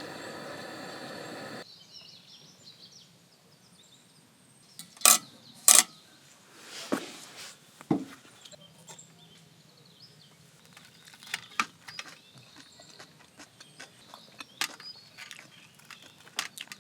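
A steady hum cuts off abruptly near the start. Then come scattered sharp knocks and clicks, the loudest two close together about five and six seconds in, with fainter clicks later.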